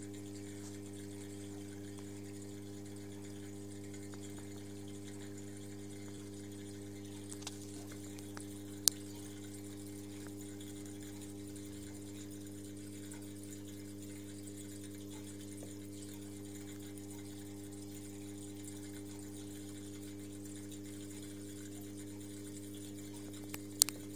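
Aquarium pump humming steadily with an even electrical hum. Two sharp clicks break in, one about nine seconds in and one near the end.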